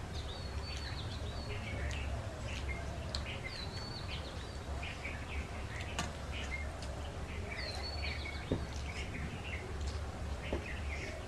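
Songbirds chirping, one repeating a short high phrase every three to four seconds, over a steady low hum. A few faint clicks come in the second half.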